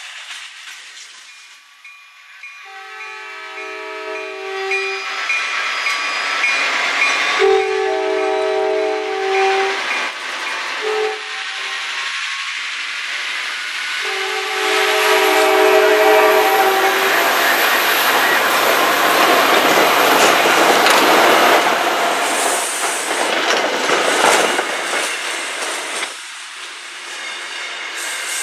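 EMD F40PH-2C commuter rail locomotive sounding its multi-chime air horn in the grade-crossing pattern: two long blasts, a short one and a long one. The locomotive and its bilevel coaches then pass close by with loud wheel and rail noise.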